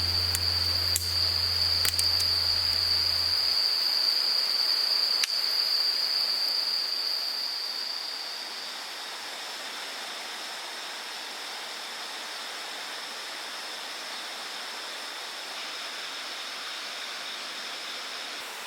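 Insects trilling in one steady high-pitched tone over a soft even hiss; the trill weakens about halfway through. A low held note from the music ends a few seconds in, and a few faint clicks sound in the first five seconds.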